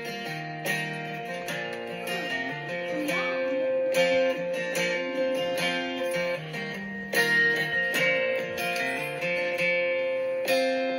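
Guitar music: a song with acoustic guitar, strummed chords and picked notes moving through a chord progression.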